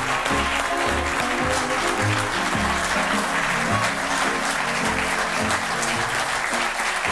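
Studio audience applauding steadily over music with a rhythmic bass line.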